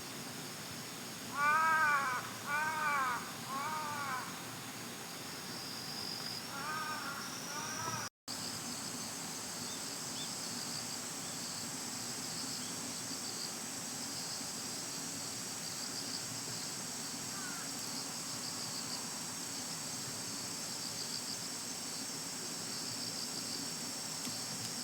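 An animal or bird gives three loud calls about a second apart, then two fainter ones, each with a rising and falling pitch. A steady high-pitched buzzing runs in the background.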